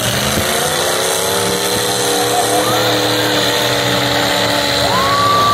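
Destruction derby car engine revved up and held at high speed for about five seconds. Near the end a single higher whine slides in.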